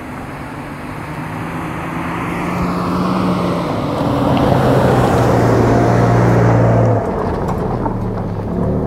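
2022 Toyota Tundra TRD Pro, twin-turbocharged 3.4-litre V6 hybrid, driving over a dirt trail, with steady engine hum and tyre noise on the dirt. It grows louder as the truck approaches, the engine note steps down in pitch a few seconds in, and the level drops suddenly about seven seconds in as the truck passes.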